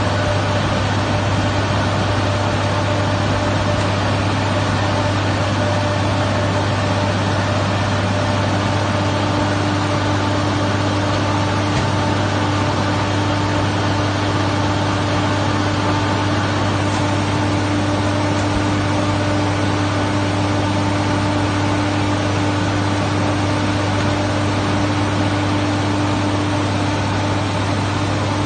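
Aircraft ground-support cart running steadily: a constant engine drone with a strong low hum and several steady tones, one of which grows stronger about nine seconds in.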